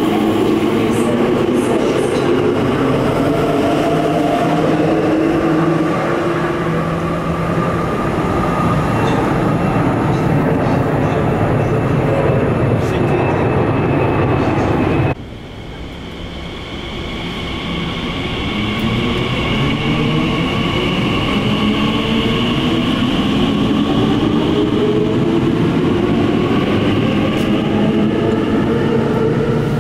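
Class 345 Aventra electric trains pulling away on electric power, traction motors whining over the rumble of the wheels. About halfway through, a sudden cut brings in a second train whose whine climbs steadily in pitch as it accelerates.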